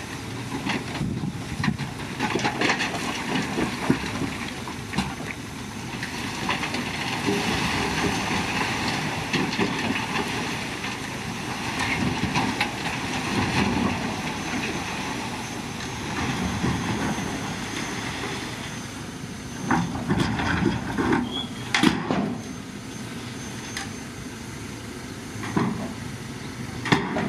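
CAT 312C hydraulic excavator working rock: engine running under load with continuous mechanical noise, broken by sharp knocks of rock and bucket, several about twenty seconds in and another near the end.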